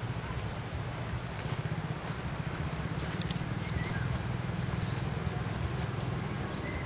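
Outdoor ambience: a steady low rumble and hiss, with a few faint short high chirps.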